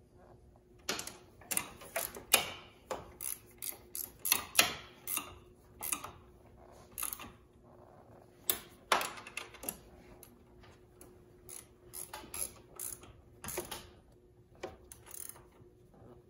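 A 13 mm wrench tightening the bolts of a loading ramp's mounting foot: a run of short, irregular metallic clicks and clinks.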